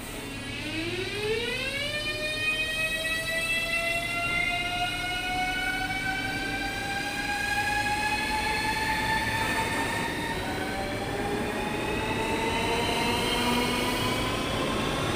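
ES2G Lastochka (Siemens Desiro RUS) electric multiple unit pulling away, its traction drive whining in a rising tone: the pitch climbs quickly over the first couple of seconds, then keeps rising slowly as the train gathers speed, over a steady low hum.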